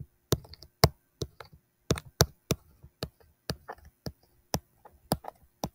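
Stylus tapping and clicking on a touchscreen while handwriting numbers, a string of sharp, irregular taps, a few a second.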